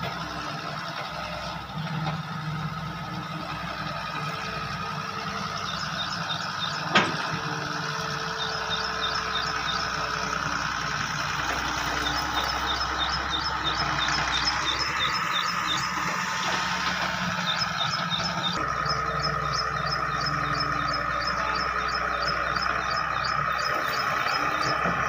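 Hitachi 160 excavator running steadily under work, a low engine hum with a steady whine above it. A single sharp knock comes about seven seconds in. From about six seconds on there are runs of rapid, evenly spaced high chirps.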